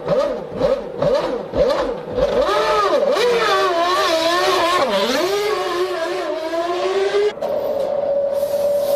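Formula One V10 race-car engines. Several cars pass in quick succession, each note falling as it goes by. Then one engine's revs rise and fall unevenly, and after a sudden cut a bit past seven seconds in, an engine holds one steady note.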